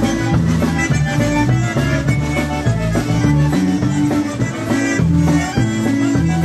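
Live polka band playing an instrumental concertina polka, the concertina's reedy lead over a bouncing bass and drums.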